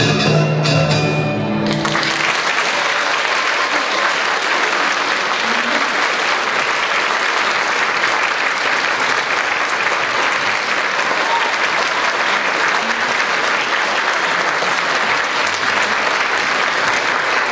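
A Chinese traditional-instrument ensemble ends its piece on a held final chord, and about two seconds in the audience breaks into steady, loud applause that continues.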